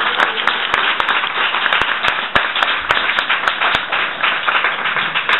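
Audience applauding: many hands clapping at a steady level, with single sharper claps standing out.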